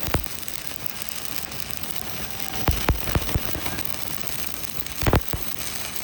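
Electric arc welding: a steady crackling hiss, broken by a few sharp metallic knocks, one near the start, three around the middle and one near the end.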